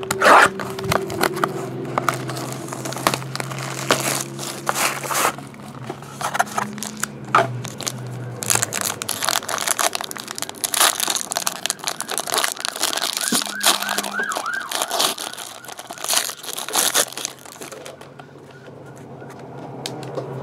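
Cellophane shrink wrap and a gold foil card pack being cut, torn open and handled: crinkling and tearing with many sharp crackles, over a faint steady droning tone.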